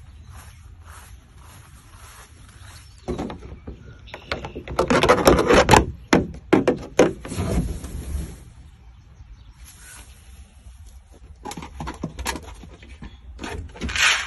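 Clattering and rustling as a backyard storage shed's door is opened and things inside are handled, loudest from about three seconds in and again near the end, over a low wind rumble on the microphone.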